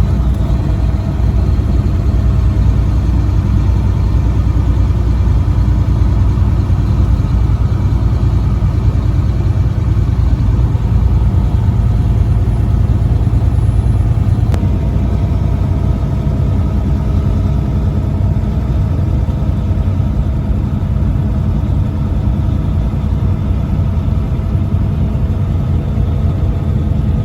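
A heavy truck's engine running steadily while driving: a continuous low drone with no horn blasts. The deepest rumble eases a little about halfway through.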